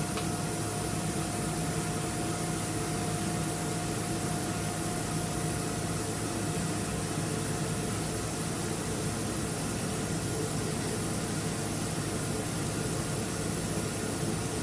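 DMU 50 Evolution 5-axis machining centre running under power: a steady hum of its drives and auxiliary units, with a faint steady whine.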